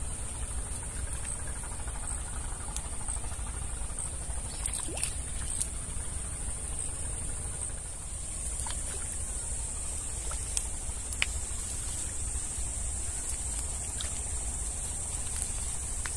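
Steady high-pitched buzz of an insect chorus in grassland, with a low rumble underneath and a few faint clicks.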